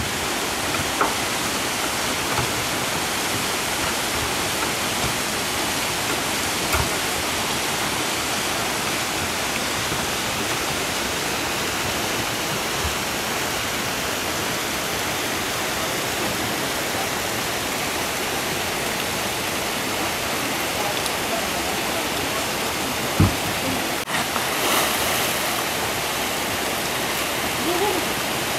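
White water of a small rocky river swollen after heavy rain, rushing steadily and evenly, with a few brief knocks, the loudest late on.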